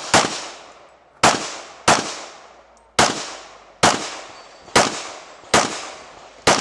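Glock 22 .40 S&W pistol firing a steady string of single shots, eight in all, about one a second, each with an echo trailing off.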